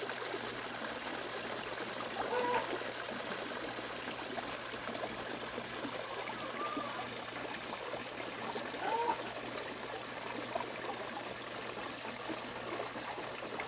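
Steady running water, a small stream or trickle flowing. Three short chirping calls sound over it, about two and a half, seven and nine seconds in.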